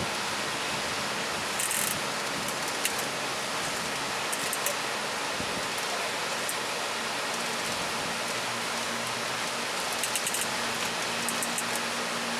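Steady rushing hiss of ocean surf breaking, with short crackles of fizzing spray now and then.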